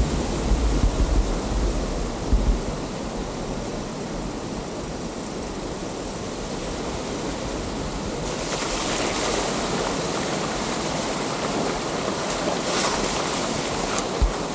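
Steady rushing water of a mountain waterfall. Wind buffets the microphone in the first couple of seconds, and the rushing grows brighter and fuller about eight seconds in.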